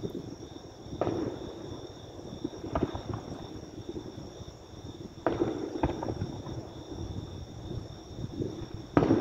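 Distant aerial fireworks shells bursting: about five booms, each trailing off in a rumbling echo, the loudest about five seconds in and near the end.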